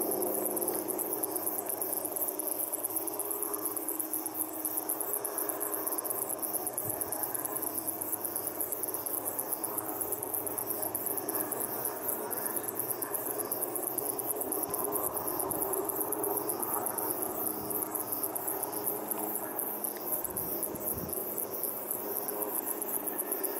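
High-pitched insect chirping in fast, steady pulses, over a steady faint background rumble.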